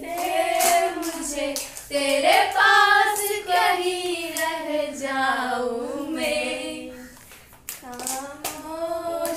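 Young female voices singing a tune together, with a few sharp hand claps.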